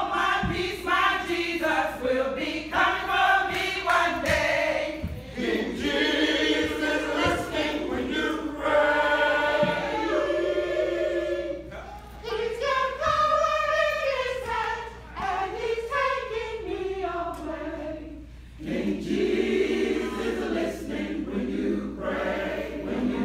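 Senior church choir singing together, many voices sustaining and moving through sung phrases, with two brief breaks between phrases.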